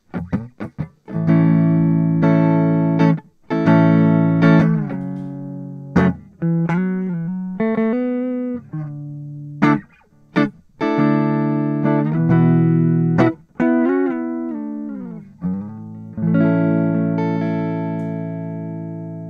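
Electric guitar played with a clean tone through the M-vave Mini-EFX pedal switched to true bypass. It plays a few short muted strokes, then strummed chords left to ring and fade, with short single-note phrases between them. The last chord rings out and fades near the end.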